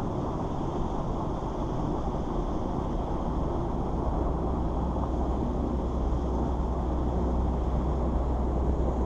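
Steady low rumble of wind buffeting the microphone, gusting a little stronger near the end.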